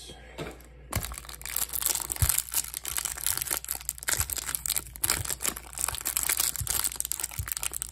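Plastic wrap around a stack of trading cards crinkling as it is handled, a dense run of crackles and small clicks starting about a second in.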